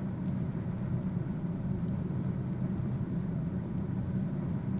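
A steady low rumble with no distinct events, like a running vehicle heard as background, with a few faint high ticks.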